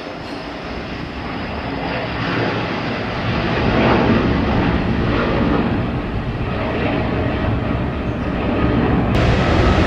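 Twin-engine wide-body jet airliner climbing out after take-off at full thrust: a loud, steady jet roar that builds over the first few seconds and holds. About a second before the end, the high hiss changes abruptly.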